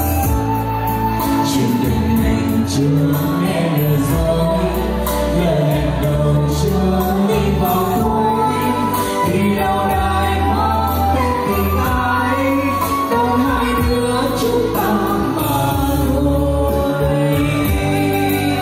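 A song: a singing voice over backing music with a sustained bass line.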